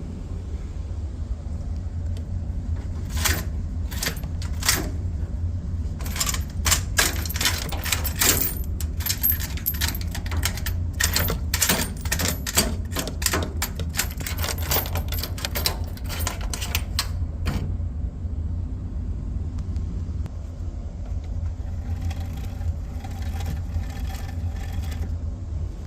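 Samsung clothes dryer running with a steady low hum and rapid, irregular clicking and rattling. The clicking is dense from a few seconds in until about two-thirds through, then fainter near the end. This is the abnormal noise the dryer is making.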